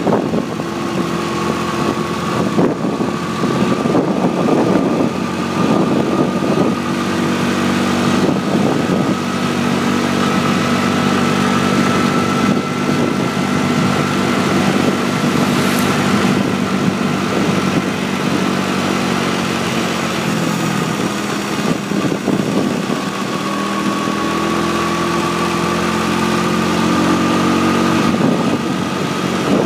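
Motorbike engine running steadily under load while riding up a mountain road, with wind rushing over the microphone. The engine pitch holds fairly even, shifting slightly a little past halfway.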